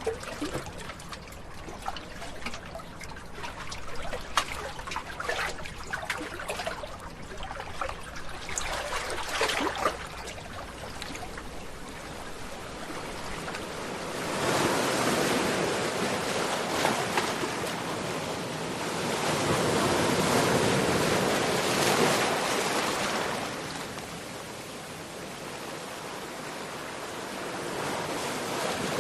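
Sea water trickling and splashing in many small bursts, then two waves surging in and washing out, each swelling up and easing off, the second the louder.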